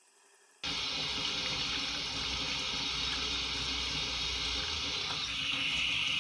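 Water from a hose pouring onto metal mesh in a steel sink. It starts abruptly about half a second in, runs steadily, and gets brighter near the end as a spray nozzle rinses the mesh.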